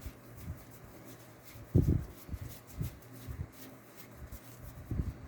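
Trading cards handled and leafed through by hand, with light crackling and a few soft thuds, the loudest about two seconds in and another near the end.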